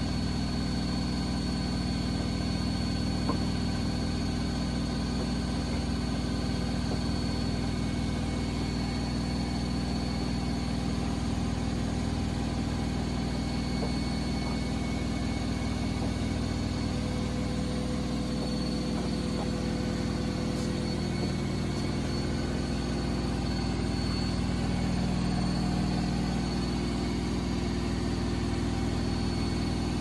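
Sharp ES-FB7145W front-loading washing machine in its spin cycle: a steady drum-and-motor hum with a thin high whine above it, even throughout.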